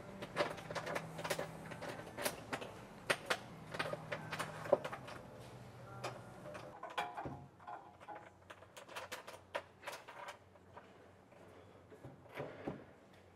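Small metal clicks and knocks of mounting bolts and hardware being handled and fitted into a rooftop tent's mounting channels, irregular and many. A steady low hum runs under them for about the first half and then fades.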